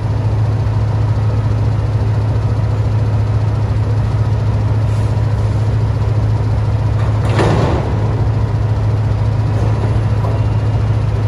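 Caterpillar C15 diesel of a Peterbilt 389 idling, heard from inside the cab as a steady low hum. About seven seconds in there is one short, loud burst of noise.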